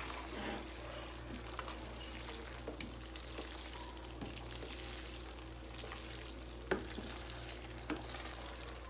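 A utensil stirring and tossing spaghetti in a thick cream sauce in a frying pan: soft, wet stirring with a few light clicks of the utensil against the pan, over a steady low hum.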